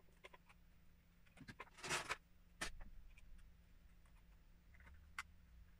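Plastic LEGO pieces clicking and rattling as a LEGO City garbage truck model is handled and parts are pressed onto it. There are a few faint separate clicks, a short rattle about two seconds in, and sharper single clicks just under three seconds and about five seconds in.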